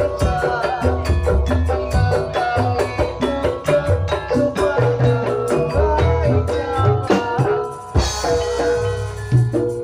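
Jaranan Dor ensemble playing: drums, including the large jidor bass drum, keep a rhythm under a fast melody of short ringing metallophone notes. About eight seconds in, a brief cymbal-like crash is heard.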